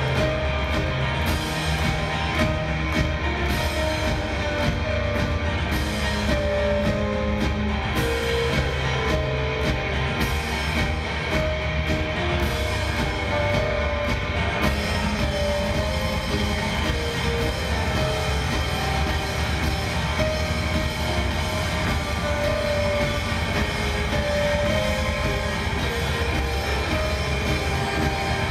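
Live indie-folk rock band playing: acoustic and electric guitars, drums and keyboards in a steady, full-band passage, heard from among the audience in a concert hall.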